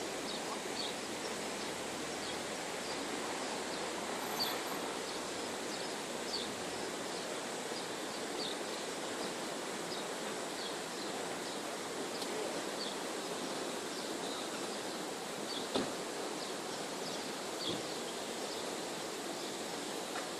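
Outdoor ambience: a steady rushing hiss with short high chirps scattered through it, and a soft knock about three quarters of the way in.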